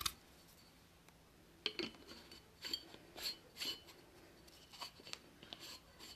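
Small clicks and clinks of a Scentsy warmer's ceramic pieces and glass bulb being handled and fitted together, starting about a second and a half in and coming a few times a second.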